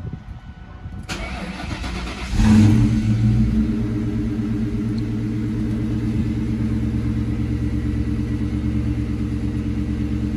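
2001 Ford Mustang GT's 4.6-litre V8, heard from the driver's seat, started from cold: the starter cranks for about a second, the engine catches with a brief rev and then settles into a steady idle. It runs smoothly, which the owner takes as the repair of the blown-out spark plug threads in the cylinder head having worked, with no big exhaust leak.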